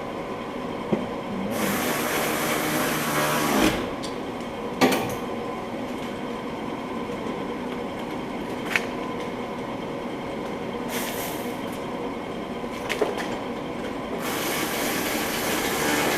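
Power ratchet whirring in two bursts, one of about two seconds near the start and another starting near the end, as it runs down the mounting bolts of a rear wheel bearing assembly. A few sharp tool clicks come in between, over a steady hum.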